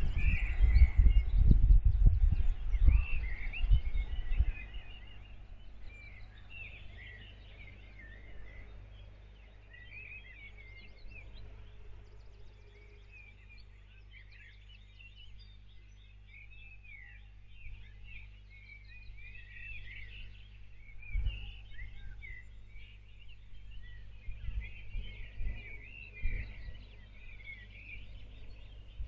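Songbirds singing in a dawn chorus: many short chirps and trills overlapping throughout. Over the first four seconds a loud low rumble gusts underneath, and a single low thump comes about twenty seconds in.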